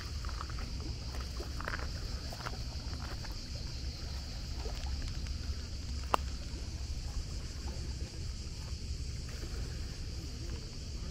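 Outdoor ambience: a steady low rumble and a steady high hiss, with scattered faint knocks and one sharp click about six seconds in.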